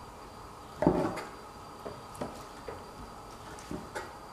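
Kitchen knife cutting raw crayfish meat on a plastic cutting board: a few light, scattered knocks of the blade against the board, the loudest about a second in.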